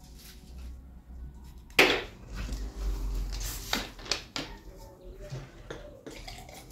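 Kitchen clatter: a loud knock about two seconds in, then a stretch of rustling and several smaller knocks, as cookware and utensils are handled.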